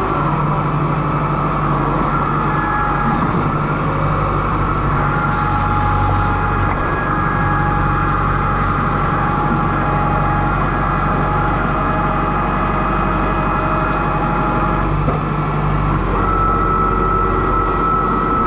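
Kubota M6060 tractor's diesel engine running steadily, heard from the operator's seat, its note shifting slightly near the end.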